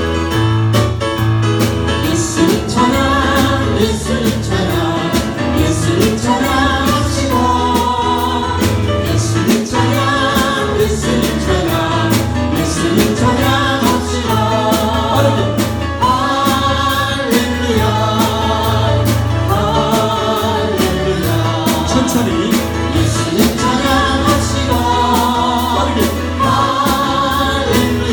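Live Christian worship song: several voices singing together over a band with strong bass and a steady beat.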